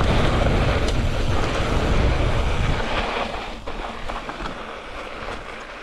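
Wind rushing over the camera microphone and mountain bike tyres rolling on loose volcanic gravel during a descent. The low rumble dies away about three seconds in as the bike slows, leaving a quieter rustle with a few small clicks.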